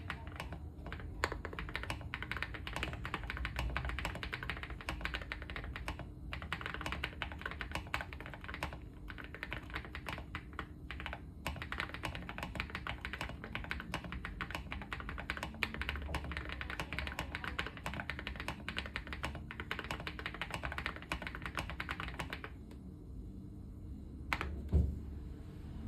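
Leobog Hi75c mechanical keyboard ('Coconut latte' version) typed on fast and continuously, a dense run of keystrokes with short pauses. The typing stops about three seconds before the end, followed by one single louder knock.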